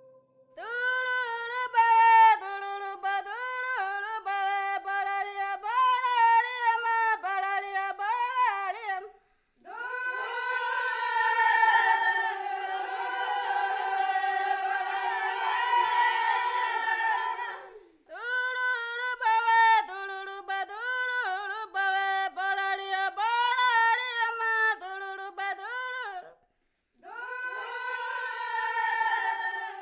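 Unaccompanied Yanomami reahu feast singing: short repeated vocal phrases, with several voices overlapping in the middle section. The song breaks off briefly about 9, 18 and 27 seconds in.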